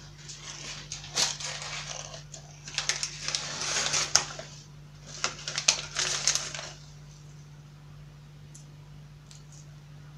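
Bursts of rustling and crackling handling noise with sharp clicks for about six seconds, then only a steady low hum.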